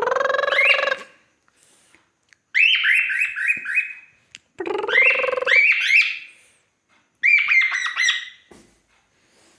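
A pet cockatiel calling in four bursts. Each is a rising squawk that breaks into a quick run of short, repeated beeping notes, about four or five a second.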